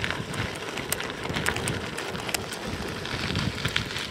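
Tandem bicycle tyres rolling over a gravel track, a steady crunching hiss with scattered sharp pops and clicks from loose stones.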